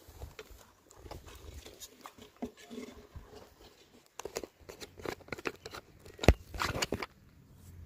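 Handling noise from fingers on the camera's microphone: faint scattered clicks and scrapes, then from about four seconds in louder crackling and rubbing with one sharp knock about six seconds in.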